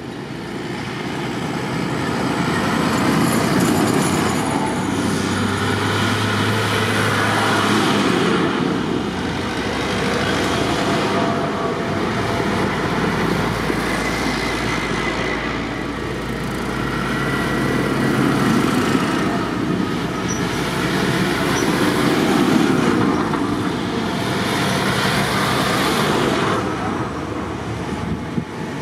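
A line of diesel farm tractors driving past one after another, a light-green Mercedes-Benz MB-trac among them. Each engine and its tyres on the tarmac swell up and fade as it passes, about five times.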